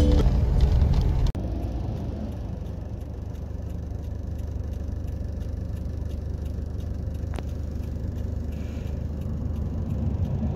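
Steady low rumble of a car driving at night, heard from inside the cabin, after background music cuts off abruptly about a second in. A single short click comes partway through.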